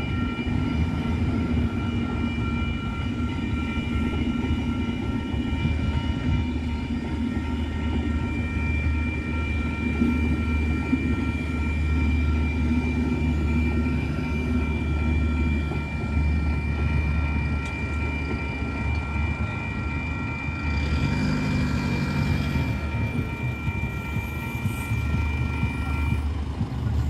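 TranzAlpine passenger carriages rolling past over a level crossing with a steady low rumble, while the crossing's warning bells ring without a break. The bells stop about a second before the end as the train clears the crossing.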